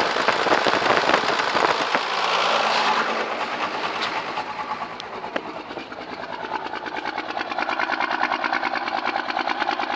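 First-gen Cummins 5.9 12-valve diesel with a VE injection pump idling roughly, with a fast, uneven diesel clatter; the rough running set in after the injection pump was resealed, and its cause is unknown. A loud hiss covers the first three seconds, after which the rhythmic clatter comes through more plainly.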